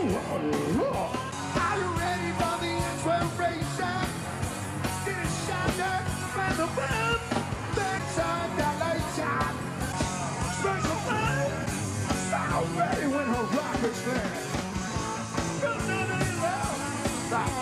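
Live rock band playing, with electric guitar, while a male lead singer sings and shouts over it.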